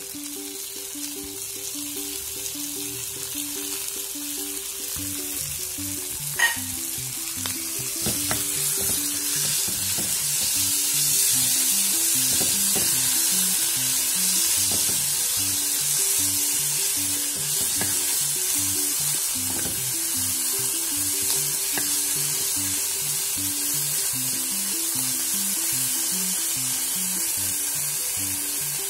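Corned tuna frying in oil in a nonstick pan, sizzling and stirred with a spatula; the sizzle grows louder about eight to eleven seconds in. There is a single sharp tap about six seconds in.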